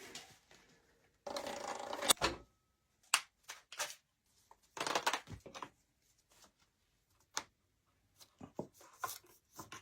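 Paintball gun being handled and worked on: scattered clicks and knocks of its parts, with two noisy stretches of about a second each, one early and one about five seconds in.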